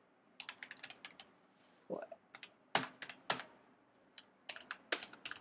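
Computer keyboard typing: a quick run of keystrokes about half a second in, then scattered single key clicks, and another short run near the end.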